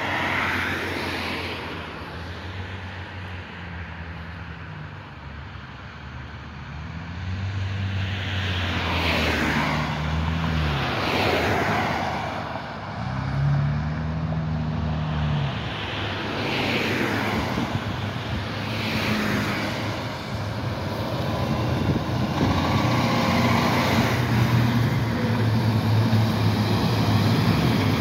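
Road traffic: several cars pass one after another with a swell and fade of tyre hiss over engine hum. From about two-thirds of the way through, the steady low drone of heavy diesel fire engines grows louder as they come up and pass close by, with no sirens.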